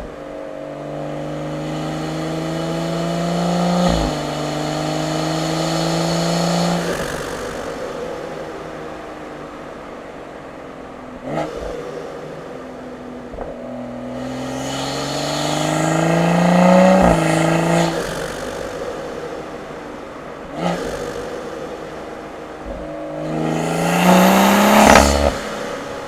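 Turbocharged B58 inline-six of a Stage 2 tuned BMW M240i, with resonators deleted and a catted downpipe, heard through engine-bay and exhaust mics while driving. It pulls hard three times, rising in pitch each time, with the longest pull early on and a fast rev near the end. Sharp short cracks come in between the pulls.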